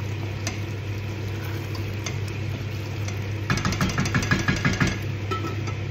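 Wooden spoon stirring a thick curry in a stainless steel pot, with a quick run of scraping strokes about halfway through, over a steady low hum.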